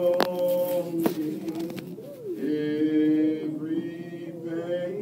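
A man singing a gospel song unaccompanied, drawing out long held notes that slide from one pitch to another. Two sharp clicks come in the first second.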